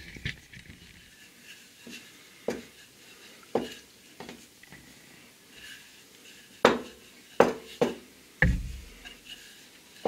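Wooden rolling pin rolling out a piece of egg-noodle dough on a floured counter: quiet rolling with scattered sharp knocks and clicks, louder and more frequent in the second half, and one dull thump.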